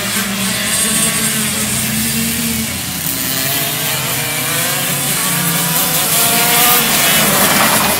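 Several 125cc two-stroke racing kart engines buzzing around a track, their pitch rising and falling as the karts accelerate and lift off, getting a little louder near the end.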